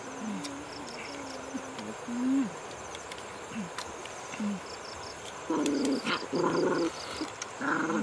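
Short, low vocal sounds that bend up and down in pitch, like soft hums or whines, come every second or so, with a louder, fuller run of them about five and a half seconds in and again near the end. Faint high chirps and a few sharp clicks sit underneath.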